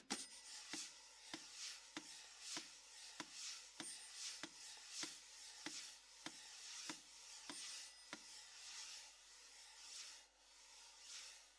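Quiet percussion: a mechanical metronome ticks steadily, about one and a half ticks a second, under soft swishing, rasping brush strokes. The ticks and swishes stop abruptly at the end.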